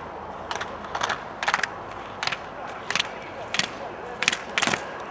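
A slalom skier's edges scraping hard snow in quick, rhythmic turns, one sharp scrape with each turn about every half to three-quarters of a second, with gate poles knocked aside as he passes. A steady hiss lies underneath.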